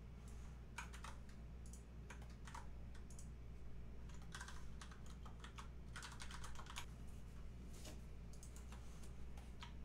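Faint computer keyboard typing: scattered, irregular key clicks in small clusters as text is typed and pasted into a note.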